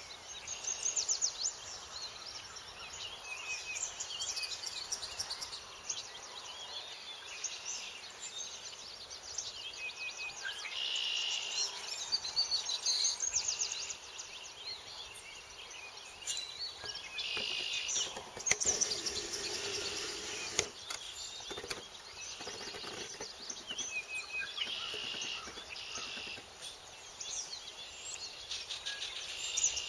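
Dawn chorus of many bird species singing at once, a continuous overlap of chirps, trills and short songs. About two-thirds of the way through, a louder rushing burst lasts a couple of seconds.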